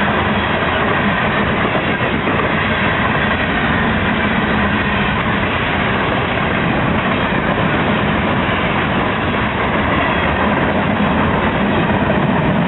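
Freight cars of a CSX rock train rolling past on the rails: steady, unbroken wheel-on-rail noise.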